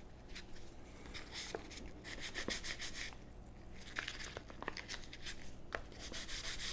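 Sandpaper crinkling and rustling as it is handled and rewrapped around a sanding block, with a few light taps. About six seconds in, 320-grit sandpaper starts rubbing on the wooden revolver grip with a steady scratchy hiss.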